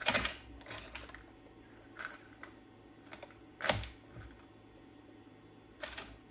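A homemade 3D-printed single-cylinder four-stroke engine being turned over slowly by hand at its flywheel sprocket, its connecting rod just snapped: several scattered clicks and clunks, the loudest a little past halfway.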